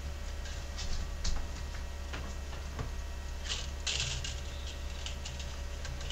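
3D printer extruder's stepper motor slowly feeding filament during an extrusion calibration run: a faint steady tone with light, irregular ticks. About four seconds in comes a brief rustle of the plastic filament spool being handled.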